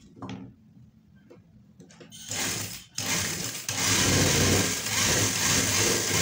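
JUKI industrial sewing machine running, stitching a fine tuck in fabric. It starts about two seconds in, stops for a moment just before three seconds, then sews steadily at speed.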